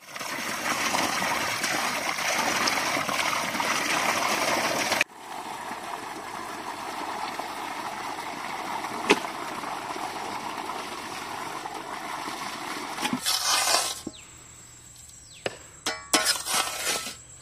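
Water pouring from a pipe into an aluminium pot while hands rinse and swish raw chicken pieces in it: a steady splashing that drops a little in level after about five seconds. Near the end the splashing gives way to a few sharp clicks and scrapes.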